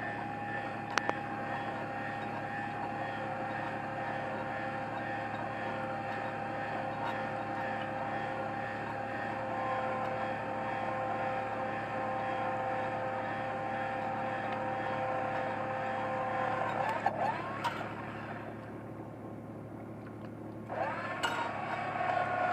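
Fishing boat's motor running steadily, with a constant whine over a low hum. About seventeen seconds in the sound dips and loses its upper range, then the whine comes back with a quick rise in pitch near the end.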